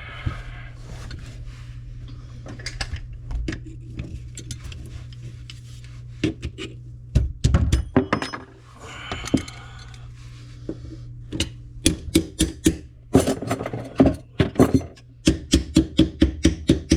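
Metal clinks and knocks from tools working a corroded sink drain tailpiece, over a steady low hum. Near the end the strikes turn into a fast, regular run of strokes, about three a second.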